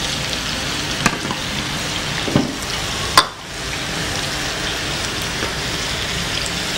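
Wire whisk stirring a thin cornflour mixture in a saucepan over a gas flame: a steady hiss with three sharp clinks of the whisk against the pan, the loudest a little past three seconds in.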